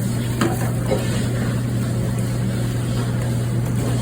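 Steady low motor hum, with a few light clinks about half a second to a second in.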